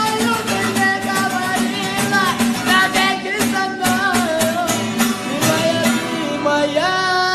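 Song on guitar: a steady plucked guitar rhythm under a wavering sung or played melody, with a long held note starting near the end.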